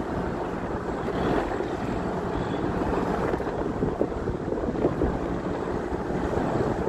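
Steady engine drone of tugboats towing a barge, mixed with wind rumbling on the microphone.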